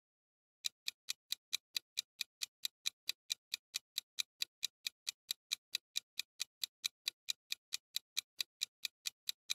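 Clock-ticking sound effect marking a countdown timer: quick, even ticks, a little over four a second, starting about half a second in.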